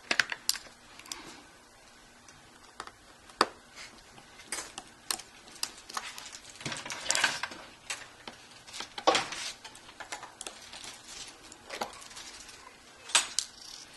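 Irregular small clicks, taps and scrapes of a small screwdriver working the battery screws out of an opened Kindle Fire HD and handling the tiny parts. A few louder clinks come about 9 and 13 seconds in.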